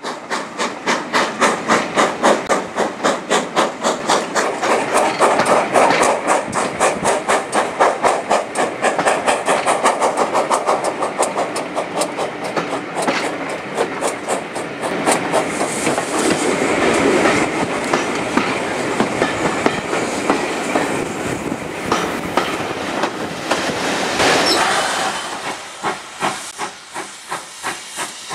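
Steam locomotive working hard at the head of a train, its exhaust beating in a steady rhythm of about two to three beats a second over a hiss of steam and running noise. The beats grow quieter near the end.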